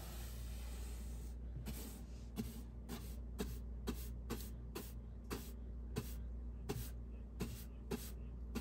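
Angled paintbrush swishing back and forth across a ribbed wall, about two strokes a second, starting about a second and a half in, over a steady low hum.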